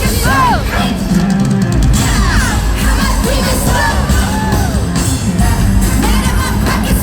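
Live pop/hip-hop concert music heard from within the audience: a loud, bass-heavy backing track with singing and yelled vocals that bend and glide in pitch, and the crowd audible underneath.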